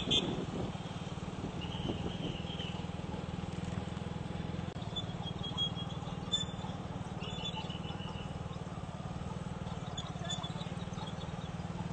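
Street traffic noise with a steady low engine hum. A car horn cuts off right at the start, and faint short high toots sound now and then.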